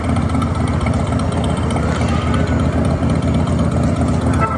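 Steady, loud low rumble of the Hagrid's Magical Creatures Motorcycle Adventure coaster train as it rolls along the track.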